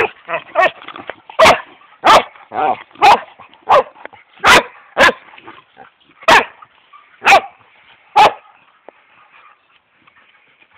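Dog barking close to the microphone, about a dozen short, loud barks over eight seconds, then it stops.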